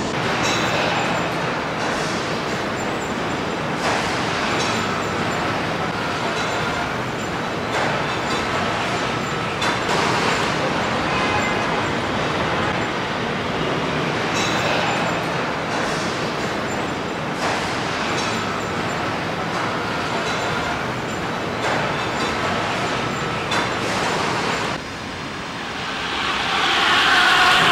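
Truck assembly plant ambience: a steady din of line machinery with scattered clanks and knocks. Near the end it swells louder, with a steady whining hum.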